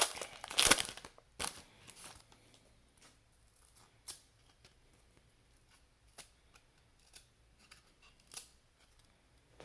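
A trading-card pack wrapper being torn open and crinkled, with loud rips in the first two seconds. After that come only faint rustles and light clicks as the cards are handled.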